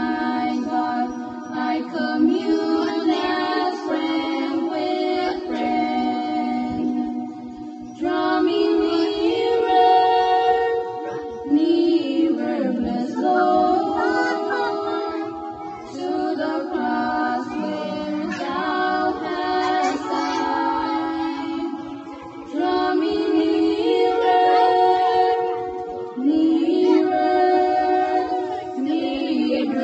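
Two female voices singing a worship song together without accompaniment, in sustained phrases a few seconds long with short breaks between them.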